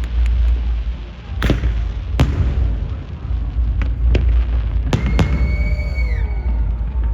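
Fireworks exploding: a continuous deep rumble of booms with sharp cracks every second or so. About five seconds in come several long whistle-like tones that hold and then fall in pitch.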